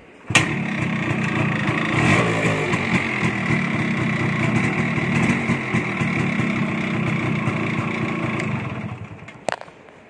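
Yamaha RX135's two-stroke single-cylinder engine kick-started, catching at once and running steadily, with a brief rev about two seconds in. Near the end it dies away as the newly fitted kill switch cuts the ignition, followed by two sharp clicks.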